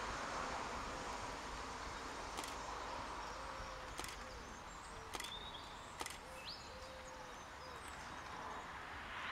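Faint, steady outdoor background noise with a few sharp clicks and a couple of short, high chirps near the middle.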